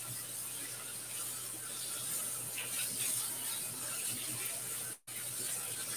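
Kitchen sink tap running faintly while something is washed, a steady rush of water with small clinks. The sound cuts out completely for a moment about five seconds in.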